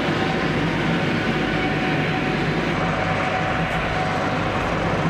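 Heavy military vehicle's engine running steadily: a dense low rumble with a faint steady whine above it.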